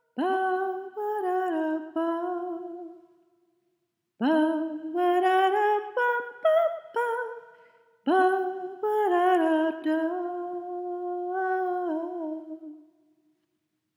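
Closing signature tune: a short melody in three phrases, each starting abruptly and fading away.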